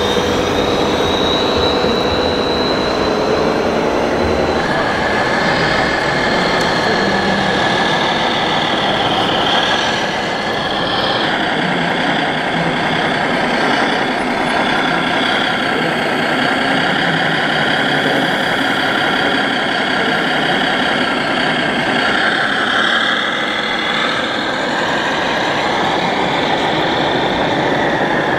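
Diesel-truck engine sound from radio-controlled model fire trucks, running steadily and changing pitch and character a few times.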